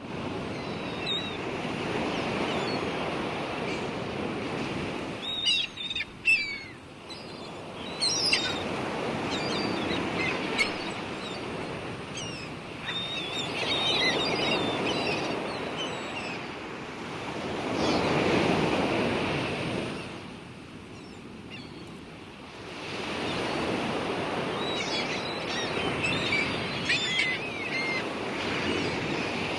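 Waves washing in and out in slow swells, with short high bird chirps and calls over them.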